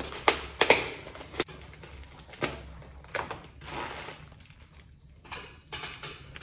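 Plastic bubble wrap and a cardboard box being handled and crumpled: a run of sharp crackles in the first few seconds, then softer crinkling.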